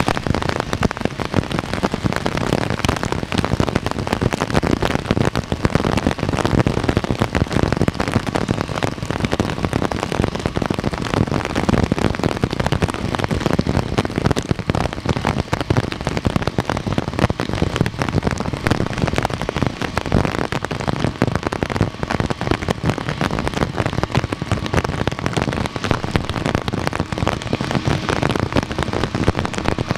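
Heavy rain pattering steadily, a dense crackle of close drop impacts. A faint steady whine joins in during the last several seconds.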